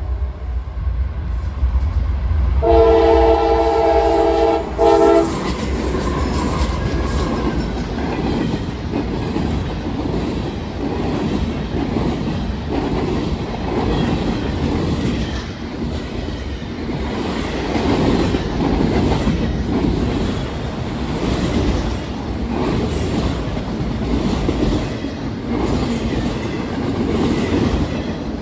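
A CSX freight locomotive, a CM44AC rebuild, sounds its multi-tone air horn once for about two and a half seconds a few seconds in, with a short break near the end. The locomotives and freight cars then roll past with a steady rumble and wheels clicking over the rail joints.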